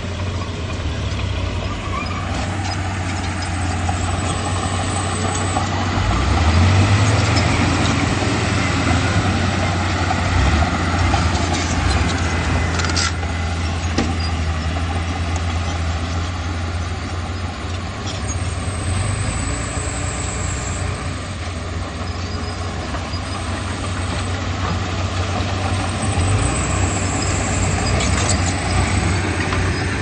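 Komatsu D31P bulldozer's diesel engine working under load, its note swelling and easing as it pushes, with a few sharp metallic knocks about halfway through.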